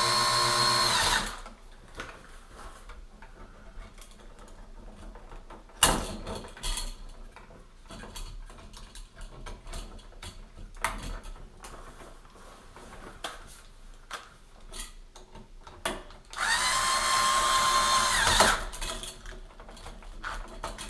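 Cordless electric screwdriver whirring in two short runs, one at the start and a longer one about 16 seconds in, each spinning up and winding down, driving the wiring-device terminal screws. Small clicks and handling noises of the screwdriver and device fill the gap between.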